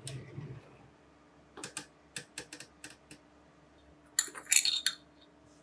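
A wooden pull-out spice drawer slides open with a short low rumble. Several light clicks follow as glass jars are handled. Near the end comes a louder burst of clinking, a metal spoon knocking against a glass spice jar.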